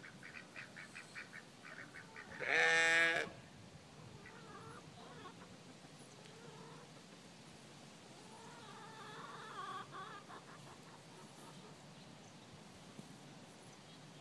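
A sheep bleats once, loudly, for about a second, a little over two seconds in. Before it comes a fast run of faint calls from farm fowl, and more faint calls follow later.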